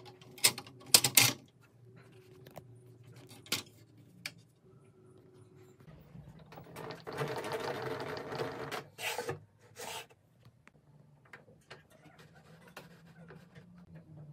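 Sharp clicks and knocks as the table saw's rip fence is clipped into its storage holders on the saw body. A few seconds later comes about two seconds of rubbing handling noise, then two more knocks.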